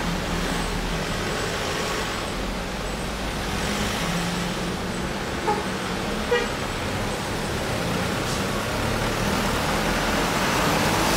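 Heavy trucks and cars climbing a steep mountain road in slow traffic, their engines working hard on the grade. Two short horn toots come about a second apart near the middle.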